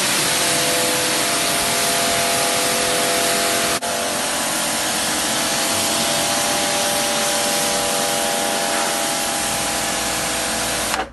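Kärcher electric pressure washer jetting water onto sandstone paving: a loud, steady spray hiss with the pump motor's steady whine underneath. There is a brief break about four seconds in, and the sound cuts off abruptly near the end.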